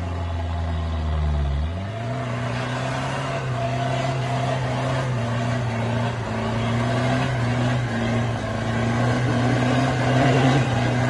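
A 4x4's engine laboring up a steep muddy climb. It revs up sharply just under two seconds in, then stays at high revs under load, wavering slightly as the wheels fight for grip.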